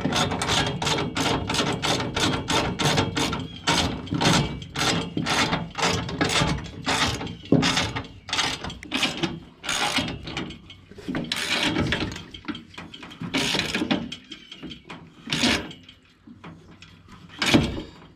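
Socket ratchet wrench clicking in quick back-and-forth strokes, about three a second, as it runs a nut down onto a bolt held by a braced wrench. After about eight seconds the strokes slow and come in short spells with pauses.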